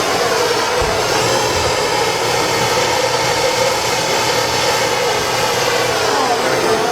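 Propane torch gun burning steadily as it heats a copper branding iron, a continuous rushing noise whose tone sweeps slowly down and back up.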